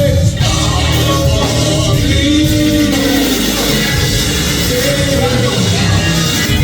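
Live gospel music: a band with heavy bass and drums playing under long held sung notes.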